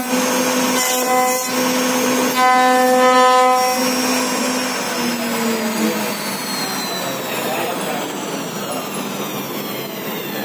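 CNC router spindle carving a wooden board with a carving bit: a high, steady whine with strong overtones that cuts in and out during the first few seconds, then glides down in pitch and settles into a lower hum over the rasp of the bit cutting wood.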